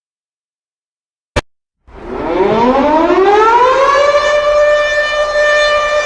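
A single sharp click, then the Pittsburgh Penguins' 1990s goal horn sounds: it winds up in pitch over about two seconds and then holds one loud, steady tone.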